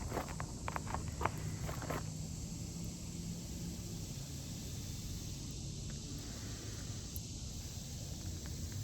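Outdoor ambience: a steady high insect drone, with a few short knocks or clicks in the first two seconds.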